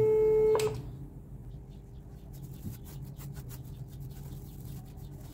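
A steady 434 Hz test tone from the loudspeaker driving the Chladni plate cuts off suddenly just over half a second in as the function generator is switched off. Then salt is swept off the plate in a run of quick, light brushing strokes.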